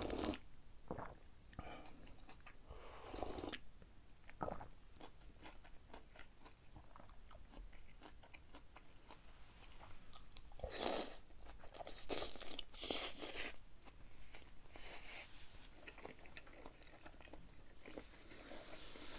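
A person slurping hot fish cake broth from a bowl, then biting and chewing soft fish cake close to the microphone. A cluster of louder bites and slurps comes in the second half.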